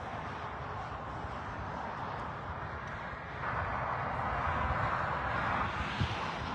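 Road traffic going past: steady tyre and engine noise that swells louder about halfway through as a vehicle approaches.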